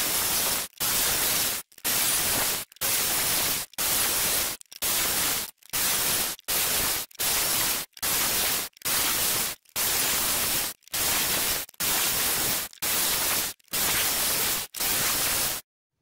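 Angle grinder cutting into a spur gear, gashing its teeth to make a worm wheel, heard as a harsh, even hiss. It comes in repeated bursts of about a second each with brief silent gaps between, and stops shortly before the end.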